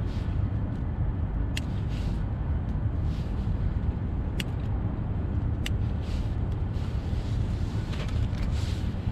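Small scissors snipping the excess film off a PVA bag of pellets: a few sharp snips with soft plastic crinkling between them, over a steady low rumble.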